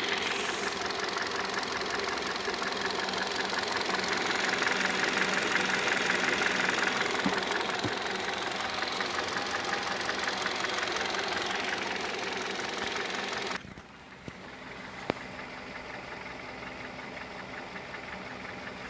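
Kia Rio's petrol engine running with a fast, even knocking tapping over its idle. About two thirds of the way in the sound suddenly drops much quieter, and a single sharp click follows soon after.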